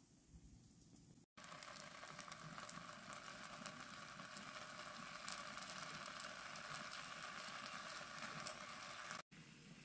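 Faint sizzling and crackling of oil and potato slices frying in a pot under a layer of rice, the tahdig crust starting to form. It starts abruptly about a second in and cuts off abruptly near the end.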